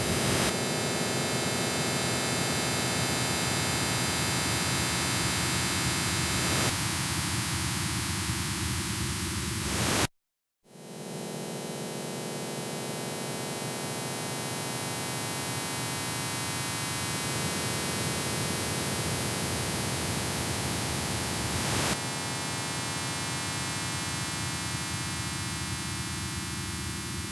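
Electronic noise music: a dense wall of static and hum laced with many steady tones. It cuts out abruptly to silence about ten seconds in and swells back within half a second, its texture shifting a few times later on.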